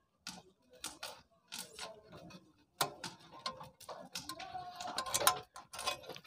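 Light metal clicks and scrapes of a coil spring being worked by hand through the strip of a Honda CD70's double stand, irregular and busier in the second half.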